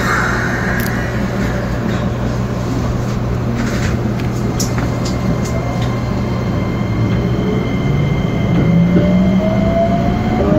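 Keikyu Main Line local train's electric traction equipment: a steady hum, then from about seven seconds in a whine of several tones rising together in pitch as the train accelerates.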